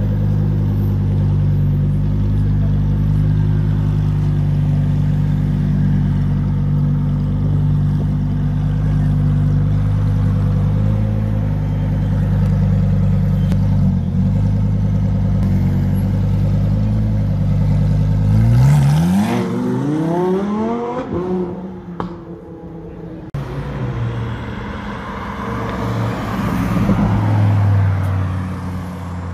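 Lamborghini Huracán EVO RWD Spyder's naturally aspirated 5.2-litre V10 running steadily at low revs, then, about two-thirds of the way through, accelerating away with a sharply rising engine note. After a brief dip at a gear change it climbs again, fainter, as the car drives off.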